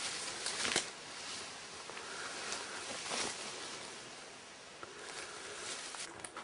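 Footsteps and rustling as someone walks into a derelict building, with a few irregular crunching steps and clothing or handling noise.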